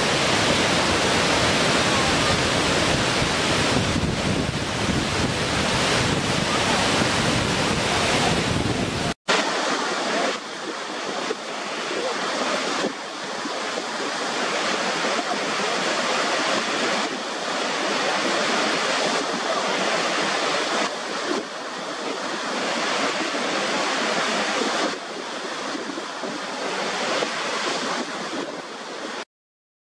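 Steady, full rush of a waterfall cascading over rock. About nine seconds in it cuts to the rush of water pouring over the brink of Niagara Falls, thinner and without the deep rumble, swelling and easing a little. The sound stops shortly before the end.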